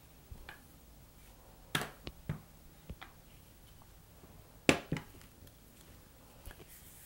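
Stainless steel rolling pin knocking on the work mat as fondant is rolled and the pin is put down: a few light knocks about two seconds in, then a sharper double knock near five seconds.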